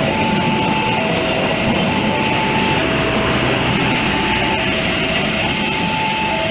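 Railway level-crossing warning alarm sounding two alternating tones, each held about a second, over the steady noise of a passing train.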